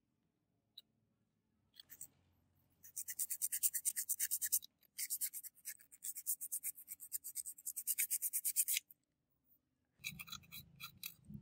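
Quick back-and-forth scraping or rubbing strokes by hand on a part, about seven strokes a second, pausing briefly twice before starting again.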